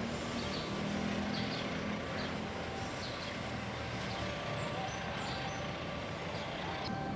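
Steady low engine rumble with a constant hiss of background noise and a few faint high chirps.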